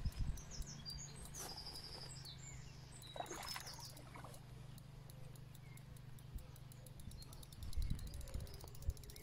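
Lakeside outdoor ambience: small birds chirping in quick high notes in the first couple of seconds and again around three seconds in, over a steady low hum. A few low thumps come near the end.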